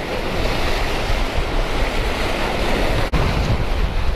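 Ocean surf breaking and washing over shoreline rocks, with wind buffeting the microphone as a heavy rumble. There is a momentary dropout about three seconds in.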